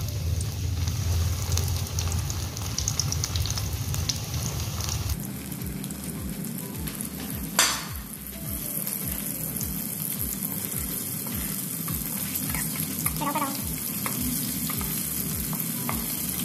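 Breaded chicken pieces deep-frying in hot ghee in a wok, a steady sizzling and bubbling. One sharp knock about halfway through.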